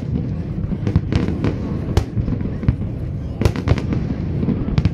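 Aerial fireworks display: a dense, irregular string of sharp bangs and crackles, about two or three a second, over a continuous low rumble of bursts.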